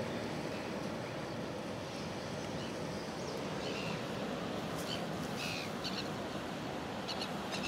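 Steady wind noise on the microphone, with a small bird chirping several times from about three seconds in.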